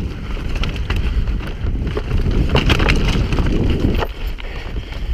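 Mountain bike descending a loose, rocky trail at speed, heard from a camera on the bike: heavy wind rumble on the microphone under tyres crunching over stones and a steady run of rattles and clicks from the bike over the rough ground.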